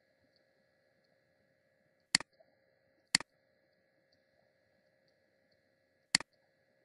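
Computer mouse clicking three times: twice a second apart, then once more about three seconds later. Each is a sharp click followed at once by a softer tick, the button's press and release.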